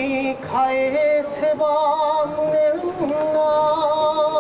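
A single voice singing a kagura chant in long held notes with a slow waver, stepping between pitches every second or so.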